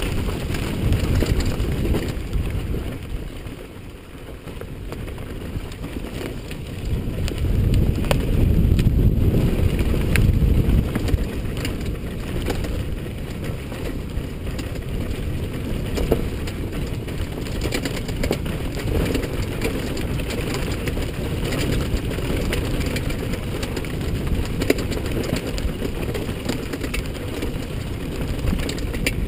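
Honda CRF450R's single-cylinder four-stroke engine running at low revs on a rough trail, heavily mixed with wind buffeting on the camera microphone. It gets louder for a few seconds about a quarter of the way in, then settles, with a few sharp clicks.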